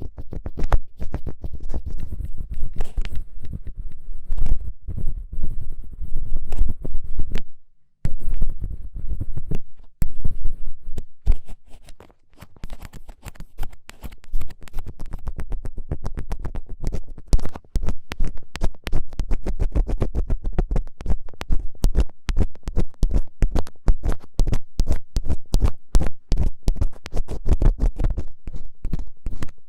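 Close-miked ear-cleaning ASMR scratching: an ear pick scraping in quick, strong strokes, with short pauses about 8 and 10 seconds in.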